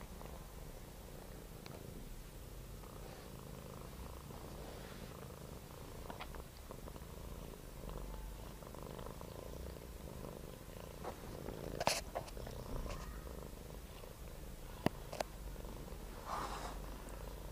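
Cat purring steadily while kittens nurse, with a few short clicks, the sharpest about twelve and fifteen seconds in.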